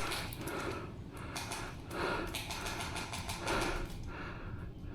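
A person's heavy breathing close to the microphone, a few breaths about a second and a half apart.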